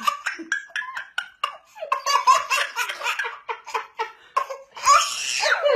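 A baby laughing hard in quick, repeated bursts of giggles. Near the end comes a louder laugh that slides down in pitch.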